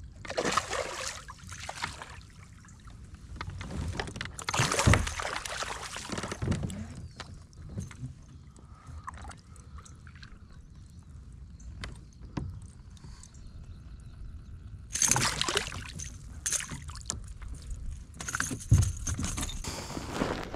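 A hooked spotted bass splashing and thrashing at the water's surface beside a kayak as it is landed, in several short bursts, with a few knocks of handling against the boat.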